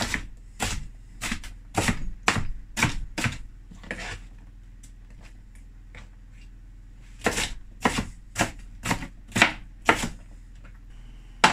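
Kitchen knife chopping red bell pepper on a plastic chopping board: sharp, even knocks about two a second. The knocks stop for about three seconds midway, then resume at the same pace.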